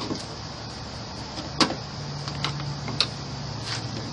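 A few sharp clicks and knocks of plastic and metal parts as a Sprinter van's sliding-door handle piece is worked into place behind the door slide, over a steady low hum.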